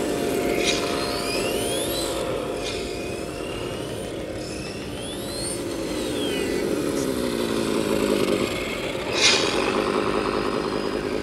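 Radio-controlled MAN TGS race truck model driving, its sound module playing a simulated truck engine through the onboard speaker, the engine note falling and rising with the throttle. Over it, a thin whine glides up and down in pitch with speed, and a short hiss comes about nine seconds in.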